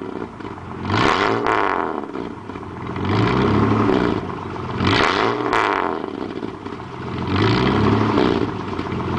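IKA Torino GS straight-six engine revved repeatedly as the throttle is pressed and released: four rises in pitch and loudness, each about two seconds apart, dropping back toward idle between them.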